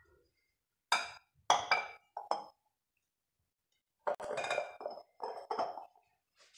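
Bowls and dishes clinking as they are handled and set down on a countertop, each clink ringing briefly. There are a few single clinks in the first couple of seconds, then a quicker cluster of them about four to six seconds in.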